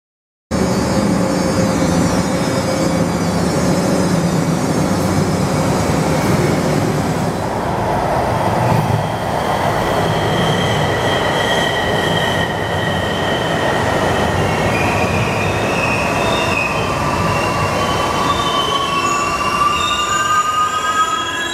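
Metrorail rapid-transit train running on its rails: a steady rolling noise with high squealing tones from the wheels, some rising in pitch near the end. It starts abruptly about half a second in.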